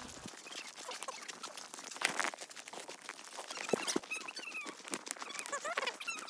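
Footsteps crunching on a dirt-and-gravel trail, with a few brief high squeaks in the second half.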